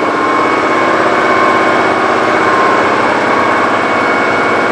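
A motor or engine running steadily, with a fast, even pulse and a thin steady whine on top.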